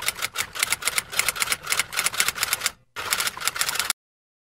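Typing sound effect: a fast run of key clicks like a typewriter, with a short pause near the three-second mark, cutting off suddenly about four seconds in.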